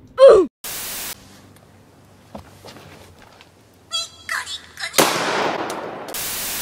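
A small white spitz dog gives one loud bark that falls in pitch, followed by a half-second burst of static. About four seconds in, a high-pitched anime girl's voice squeals briefly and is cut off by a gunshot whose noise trails away over about a second, then comes another short burst of static.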